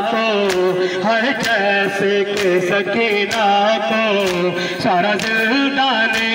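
Male reciter singing an Urdu noha (Shia lament) over a held drone of mourners' voices. Sharp chest-beating strokes (matam) keep time about once a second.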